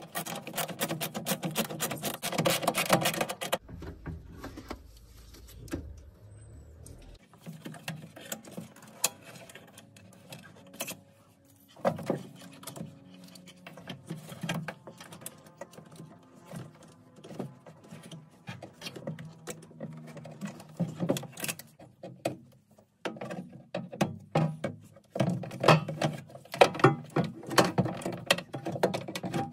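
Irregular clicks, rattles and knocks of metal and plastic parts as the window regulator is worked loose and pulled out of a BMW E46's stripped front door, busiest near the start and near the end.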